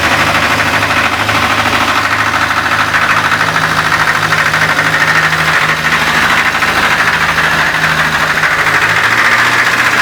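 ZMZ-402 four-cylinder petrol engine of a GAZ Volga running steadily above idle, its pitch stepping up slightly a few seconds in and holding, with a rumble that comes in only around 2000–2500 rpm. The owner suspects a burnt exhaust gasket, or possibly valves or pistons.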